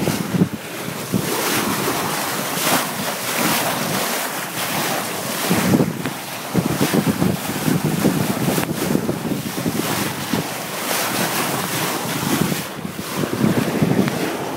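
Wind buffeting the microphone in uneven gusts over the rush and splash of water along a sailboat's hull as it sails under spinnaker.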